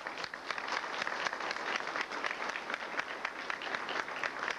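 Audience applauding: many hands clapping steadily at once.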